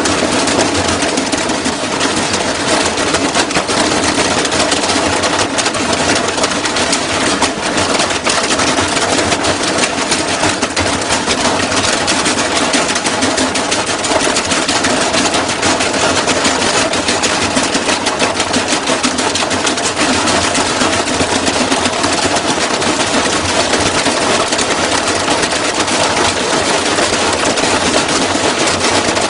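Washing machine spinning hard, its drum banging and rattling in a rapid, continuous clatter as it shakes itself apart.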